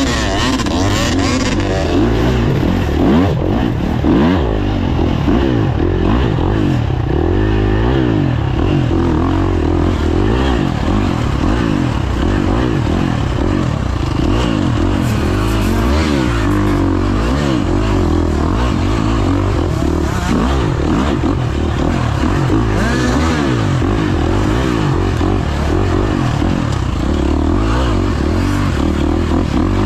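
Dirt bike engine heard onboard, revving up and down continuously as the rider works the throttle through a race lap, with scattered clatter from the bike over rough ground.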